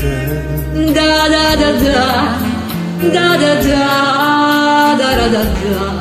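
Singing over a karaoke backing track: a voice holds and slides between long notes, with no words, over a bass line and a steady ticking beat.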